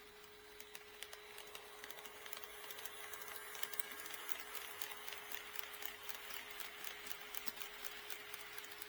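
HO scale model train running on the layout's track: a light rolling rattle with many small wheel clicks over the rail joints, growing louder as it approaches and peaking around the middle before easing slightly.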